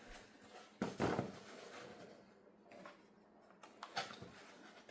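Cardboard packaging being handled: a sharp scrape or slide about a second in, followed by a few light knocks and rustles.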